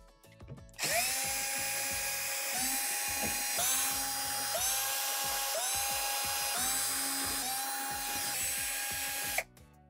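Cordless power screwdriver with a T20 Torx bit whining as it runs in reverse, backing the Torx screws out of the back panel. The motor spins up again about once a second, screw after screw, and stops near the end.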